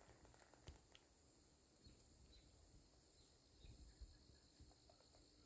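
Near silence: a faint, steady, high insect drone with a few faint soft knocks and ticks.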